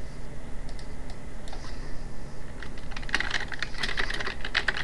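Typing on a computer keyboard: a few scattered clicks, then a quick run of keystrokes from about three seconds in.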